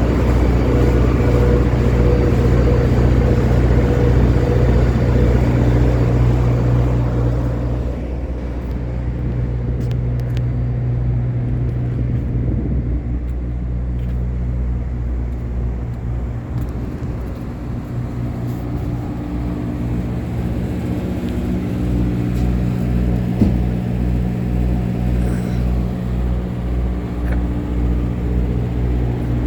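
An engine running steadily with a low, even throb. About eight seconds in it drops in level and its higher tones fade, then it runs on steadily.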